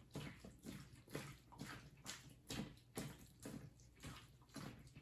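Diced raw chicken thigh being massaged by gloved hands in a stainless steel bowl of marinade (soy, rice wine, sugar, cornstarch, egg white and oil), with faint wet squelching about twice a second.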